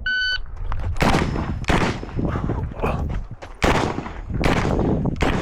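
A shot timer's short electronic start beep, then a string of rifle shots from a PTR91 semi-automatic .308 rifle, fired about one every half-second to second, with a longer pause of over a second midway.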